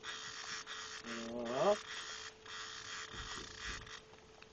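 Fishing reel being cranked in spurts against a hooked striped bass: a rasping noise that stops and starts every half second or so, over a steady hum. A short rising tone about a second and a half in.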